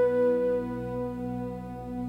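Slow instrumental relaxation music: a held flute note fades out about half a second in, leaving a soft sustained low drone.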